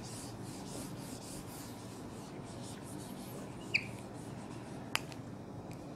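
Wooden-backed duster rubbing across a whiteboard, faint repeated scrubbing strokes as the drawing is wiped off, with a brief squeak near the middle and a single click about five seconds in.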